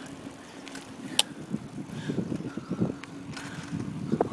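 Bicycle being ridden along a paved path: a steady low rattle of tyres and frame, with a sharp click about a second in and a knock near the end.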